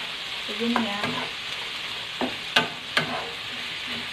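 Shrimp sizzling steadily as they stir-fry in a frying pan, with a spatula knocking and scraping against the pan three times in the second half, the middle knock the loudest.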